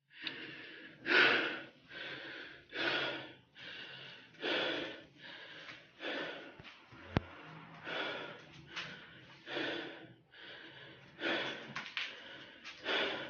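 Heavy, rhythmic breathing or snoring: a breath in and a breath out, with a stronger breath about every 1.7 s. A single sharp click about halfway through.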